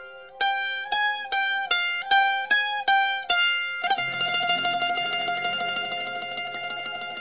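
Background music on a plucked string instrument: a run of single picked notes, about three a second, then sustained notes from about four seconds in.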